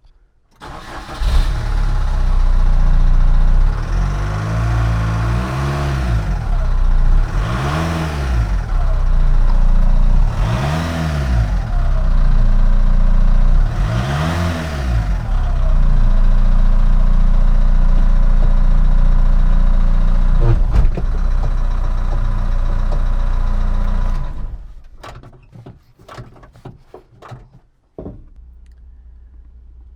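VW T3's 1.9 TDI four-cylinder turbo diesel starting about a second in, being revved and let fall back three times, then running steadily before it is shut off near the end. This is a test run after the engine was refitted with a dual-mass flywheel and new clutch.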